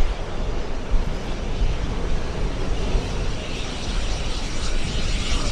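Jet engines of the Blue Angels' F/A-18 Super Hornets flying over in formation: a loud, steady rumble with no distinct tones.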